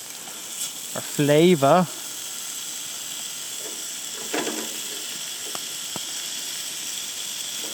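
Bacon sizzling steadily in a hot cast iron pan.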